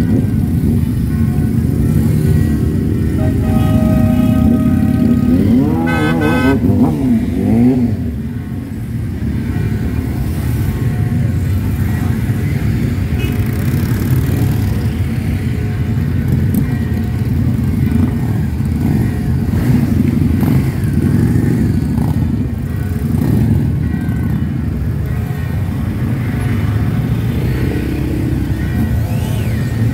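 A column of motorcycles, cruisers and sport bikes, pulling away one after another at low speed with their engines running steadily. A few seconds in, a horn sounds, held and then wavering in pitch.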